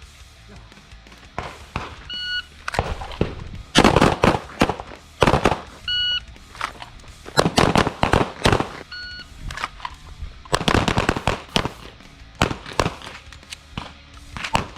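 A shot timer beeps three times, each beep starting a string of pistol shots from several shooters firing at once: the failure drill of two shots to the chest and one to the head.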